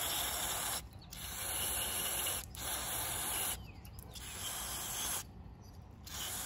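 CRC mass airflow sensor cleaner hissing from an aerosol can through its straw nozzle in about five bursts with short breaks between, sprayed onto a mass airflow sensor's sensing wires to clean them.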